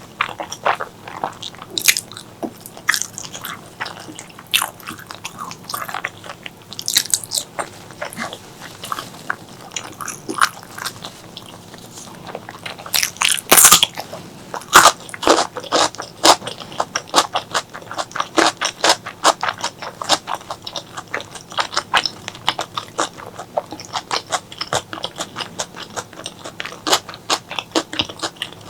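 Close-miked chewing and biting of pork leg curry with rice: a steady run of wet mouth clicks and smacks, with a cluster of louder bites about halfway through.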